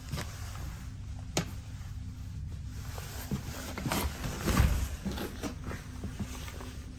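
Steady low rumble of a regional passenger train running, heard from inside the coach, with a constant hum under it. A sharp click comes about a second and a half in, and a louder low thud about four and a half seconds in.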